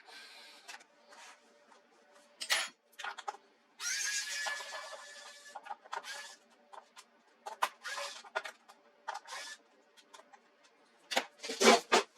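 Handling noise from a laptop being taken apart by hand: scattered clicks and taps of plastic and small parts, a longer scraping stretch about four seconds in, and a louder knock near the end.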